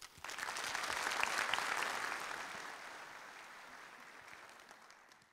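Audience applauding: the clapping swells within the first second, then dies away steadily and fades out near the end.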